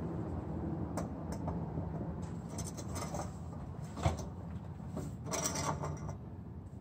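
Light metallic clinks and rattles from an aftermarket cat-back exhaust pipe being held up and shifted into place under a car, with one sharper knock about four seconds in, over a steady low hum.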